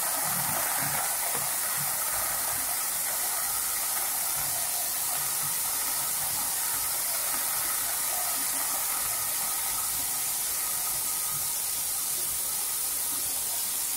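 Paneer cubes shallow-frying in shallow oil in a non-stick kadai on a low flame: a steady, even sizzle as the moisture in the paneer meets the hot oil.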